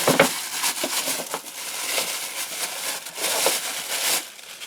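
Packaging crinkling and rustling, with many quick crackles, as the flex shaft grinder's motor is handled and unwrapped. It stops shortly before the end.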